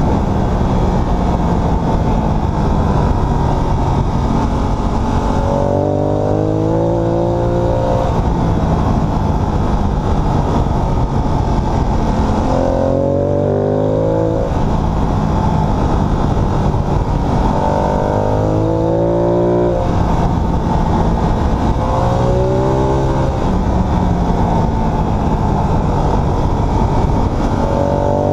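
Ducati Multistrada 1200 S's V-twin engine under way, rising in pitch about five times as it accelerates and falling back in between, over a steady rush of wind and road noise.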